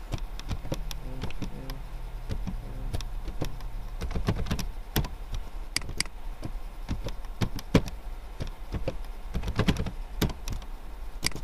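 Computer keyboard typing: key clicks in short, irregular runs as a password is typed in, over a steady low hum.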